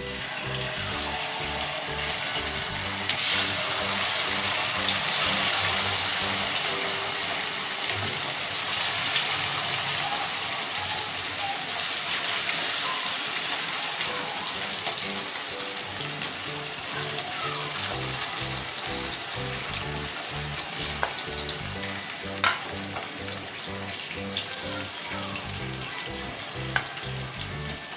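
Marinated chicken pieces deep-frying in hot oil in a kadai: a steady sizzle that grows louder about three seconds in, with one sharp tap a little past the middle.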